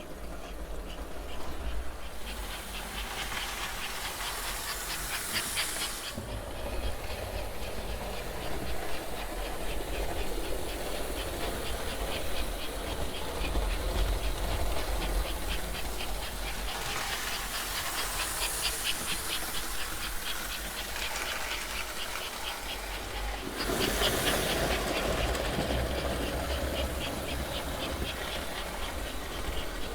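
American Flyer 21004 0-6-0 toy steam locomotive running on its track with its cars: a steady motor whir with fast fine clicking of wheels and gears. It grows louder and hissier three times as it passes close by.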